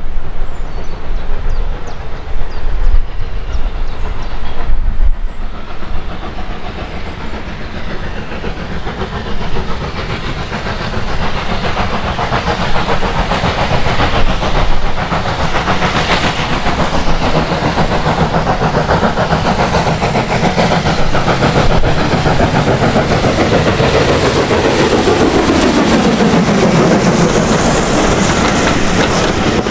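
Steam train, an LSWR T3 Class 4-4-0 locomotive and its coaches, running past close by. Wind buffets the microphone at first; from about halfway the wheels give a steady, fast clickety-clack, and a tone falls in pitch near the end as the train goes by.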